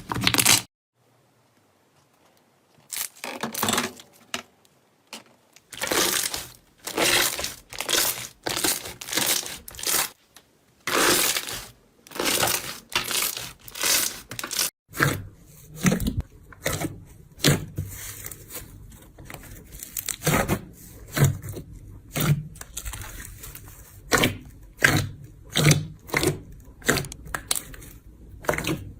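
Slime being worked by hand: repeated short crackly squishes and tearing sounds, one or two a second, after a brief silent gap near the start.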